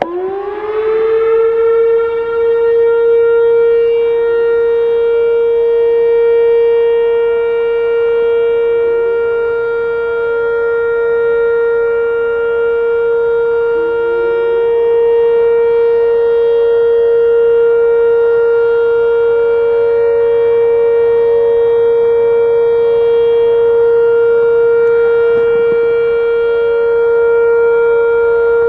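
Whelen WS-2016 electronic outdoor warning siren starting its steady alert signal: the tone rises in pitch over about a second, then holds one steady, loud note. Fainter distant sirens rise in pitch behind it a few times as they start up.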